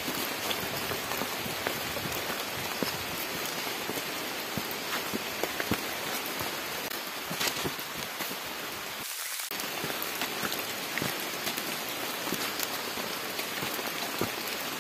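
Steady rain falling on forest leaves, with scattered single drops ticking close by.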